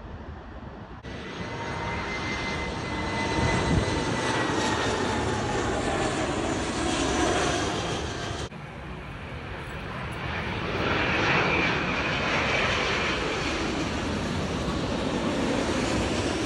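Jet airliners on final approach passing low overhead in quick succession. The first is an Airbus A320-family jet whose turbofans whine and fall slowly in pitch as it goes over. After an abrupt cut, a Boeing 787's engines swell to a loud, steady roar.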